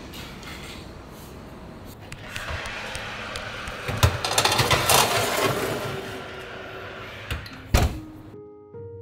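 Metal baking tray slid onto an oven's wire rack, clattering and rattling for a second or two, then the oven door shut with two sharp knocks near the end, the second the loudest. Soft piano notes begin right after.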